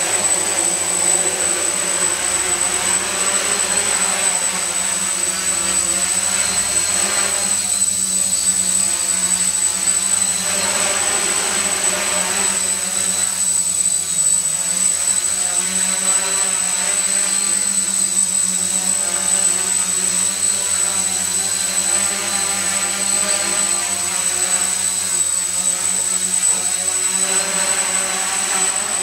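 Small quadcopter's four electric motors and propellers buzzing steadily, their pitch wavering up and down as the throttle changes while it lifts off, hovers and settles. A constant high-pitched whine runs underneath.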